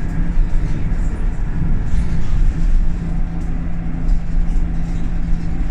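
Scania L94UB single-decker bus heard from on board: the diesel engine runs with road rumble and light rattles. A steady low drone sets in about two seconds in.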